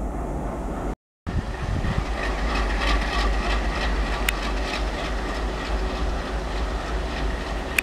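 An Indian Railways WDM-3A ALCO-type diesel locomotive running with a steady low rumble, together with freight wagon wheels on the rails and a couple of sharp metallic clicks. The sound drops out completely for a moment about a second in.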